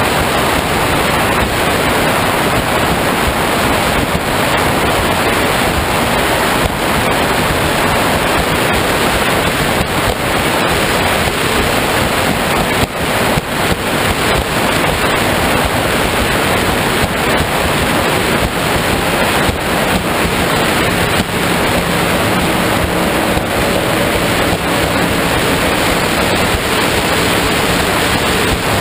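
Powerboat running fast: wind buffets the camera microphone and water rushes and hisses past the hull in a steady, loud noise. A faint engine drone lies underneath, a little clearer in the last third.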